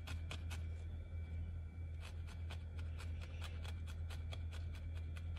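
A barbed felting needle jabbing repeatedly through a small tuft of wool into a felting pad: light, quick ticks about four or five a second, fainter for a moment about a second in.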